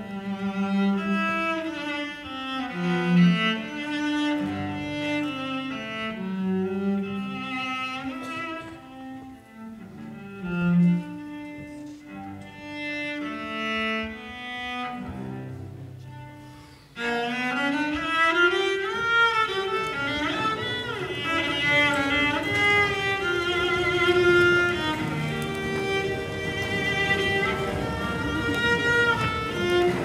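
Bowed-string music, cello-like: slow, low held notes, then a little over halfway through a sudden louder, fuller passage with notes that slide up and down in pitch.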